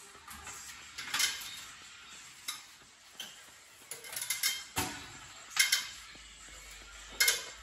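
Irregular metallic clanks and clinks, about eight sharp knocks with short ringing, as an engine hanging from an engine hoist is guided down into the engine bay; the loudest come near the end.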